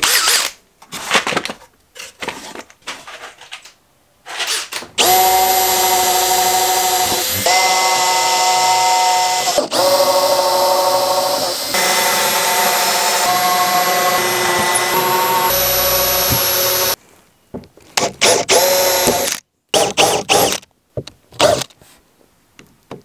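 Cordless drill boring holes into plywood panels: a few short spurts, then a long steady motor whine that steps to a slightly different pitch every couple of seconds, then short spurts again near the end.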